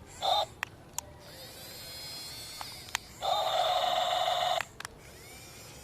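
Toy RC excavator buzzing in two steady bursts, a short one near the start and a longer one of about a second and a half past the middle, with scattered sharp clicks and a fainter whine between them.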